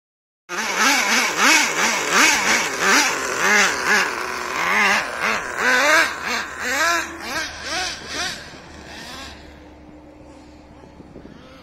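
Traxxas TRX 3.3 nitro engine in a Nitro Slash RC truck, revving up and down in quick bursts about twice a second as the truck is driven hard. It starts suddenly about half a second in and fades near the end as the truck drives off.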